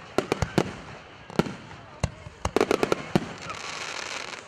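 Aerial fireworks shells bursting: a string of sharp bangs, with a rapid cluster about two and a half seconds in. Near the end, a burst of crackling from a glittering gold shell.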